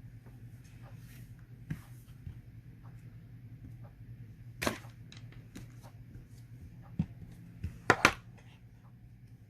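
Slime worked by hand, giving scattered sticky clicks and pops, the loudest a quick double pop near the end, over a steady low hum.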